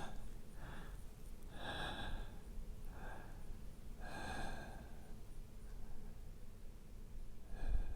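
A man's heavy breathing close to the microphone: about five separate breaths, with a longer pause before the last one near the end. The breathing is acted as that of a man dying from a gunshot wound.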